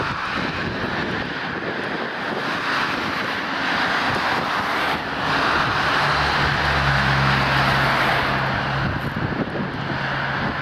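Airbus A320 jet engines on landing: a steady broad roar that grows louder about six seconds in as the airliner touches down and rolls out on the runway, with a low hum joining it.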